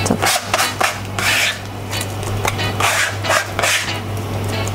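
A plastic scraper tapped and rubbed over a salad spinner basket to knock chopped mizuna off it: a few short scraping rubs and light clicks. A steady low hum runs underneath.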